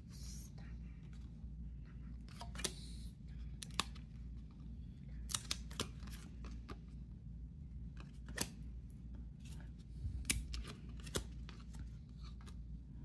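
A stack of football trading cards being flipped through by hand, cards sliding and snapping against one another in about a dozen scattered soft clicks.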